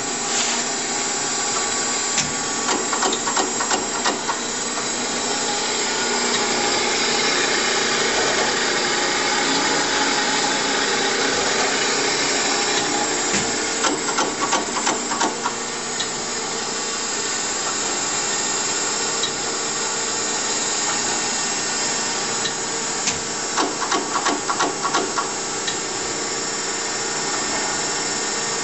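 Chevalier FSG-1224AD surface grinder running its automatic grinding cycle, with a steady hum from the machine. Three spells of rapid clicking come roughly ten seconds apart.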